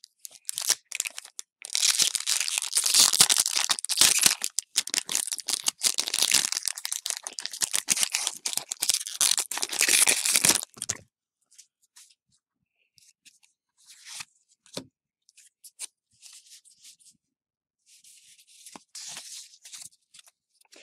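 Foil Pokémon Cosmic Eclipse booster pack wrapper being torn open and crinkled, a dense crackling tear lasting about nine seconds and stopping abruptly. Then only a few faint, scattered rustles and clicks as the cards are handled.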